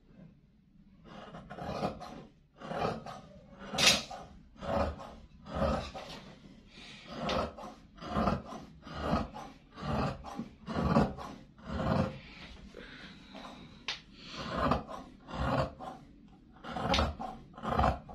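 Large tailor's shears cutting through woven cloth: a steady run of snips, about one a second.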